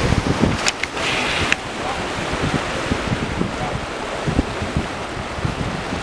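Wind buffeting the microphone over the steady wash of surf on rocks, with a few sharp clicks and a short hiss about a second in.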